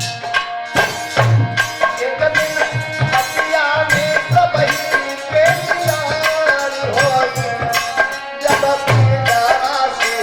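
Instrumental interlude of a devotional folk song: a wavering melody line over a steady rhythm of hand drums.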